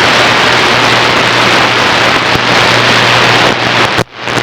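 CB radio receiver on AM channel 28 putting out loud static hiss between long-distance transmissions, with a low steady hum under it. The static drops out briefly about four seconds in, then returns.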